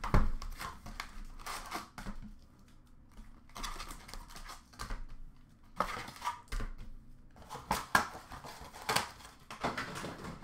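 Cardboard hockey card boxes being handled and opened, with the wrapped packs pulled out and set down on a glass counter: irregular rustling, scraping and light knocks, with a sharp thump right at the start.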